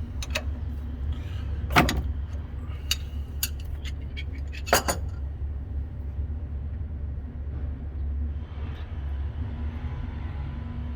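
A wrench clicks and clanks on the oil drain fitting of a Prochem Legend truckmount as it is loosened, with a handful of sharp metallic knocks. The loudest come about two and five seconds in, over a steady low rumble.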